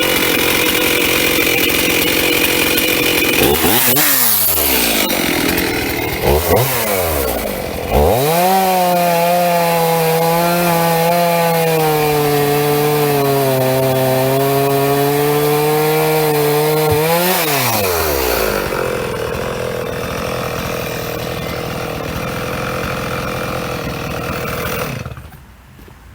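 Stihl chainsaw cutting through a large burl. It is revved up and down a couple of times, then held at full throttle in the cut with the pitch sagging a little under load. The revs drop about two-thirds of the way through, and the saw stops near the end.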